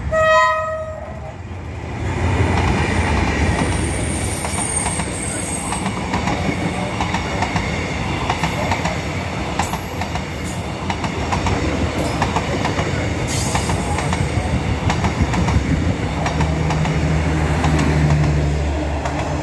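A diesel-electric locomotive (D19E) sounds its horn in one short blast of about a second at the start. It then passes close by with a loud rumble, followed by its passenger carriages, whose wheels clickety-clack over the rail joints. A steady low hum joins the rumble near the end.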